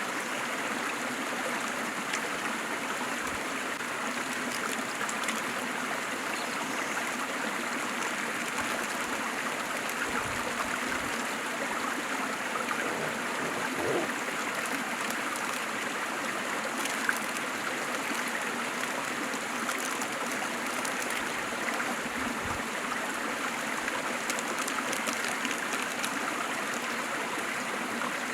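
Waterfall and stream water running steadily, a constant rushing with small splashes and gurgles.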